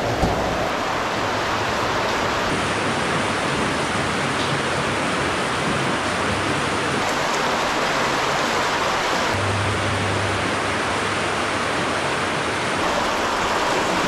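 Steady rushing of water flowing down the steep channel of a stone-vaulted stream culvert.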